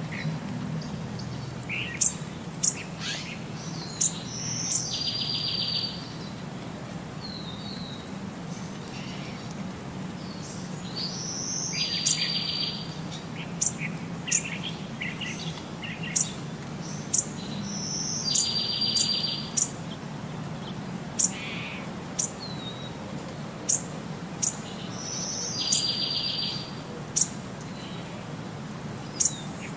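Bird chirps and tweets in a looped track, the same few-second pattern of sharp high chirps and a short trill repeating about every seven seconds, over a steady low hum.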